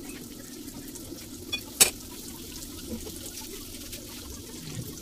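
Breaded chicken fillets frying in oil in a pan, a steady sizzle, with one sharp clink about two seconds in.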